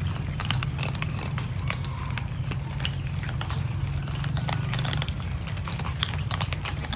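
Several cats crunching dry kibble: a quick, irregular run of small crisp clicks, over a steady low hum.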